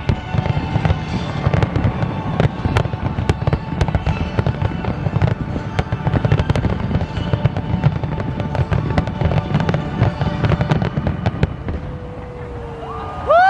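New Year fireworks display: a dense run of rapid cracks and bangs over a continuous low rumble, thinning out about two seconds before the end.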